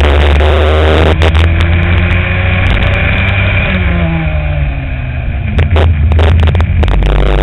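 Go-kart engine at speed, heard onboard, over a constant heavy low rumble. Its pitch falls and its level drops a few seconds in as the kart slows for a corner, with a few sharp knocks, before it picks up again near the end.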